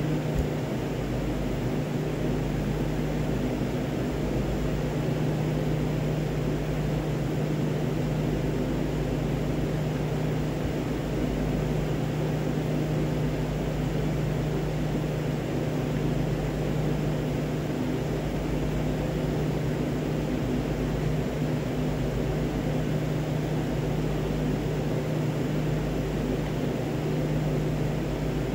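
Steady machine hum of room equipment: one constant low drone under an even hiss, with no change in pitch or level.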